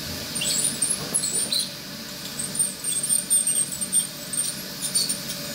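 Ultrasonic dental scaler working tartar off a dog's teeth: irregular high-pitched squeaks and whines as the vibrating, water-cooled metal tip chips at the tartar, over a steady low hum.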